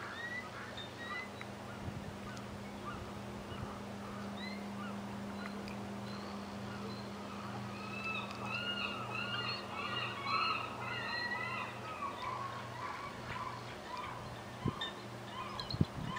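Bald eagle calling: a run of high, chittering chirps that thicken into a rapid series about halfway through, over a steady low hum.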